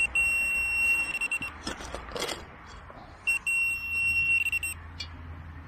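Handheld metal-detecting pinpointer probed into a dug hole, sounding two long, steady high-pitched tones of about a second and a half each, with scraping of soil in between: the pinpointer is signalling a metal target close to its tip.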